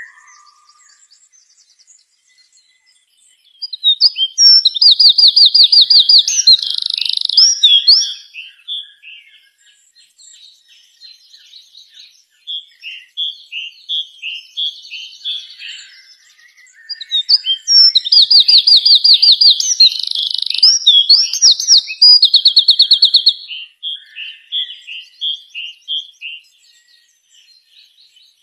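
A songbird singing: two long, loud phrases of rapid high trills about thirteen seconds apart, with softer repeated chirps between them.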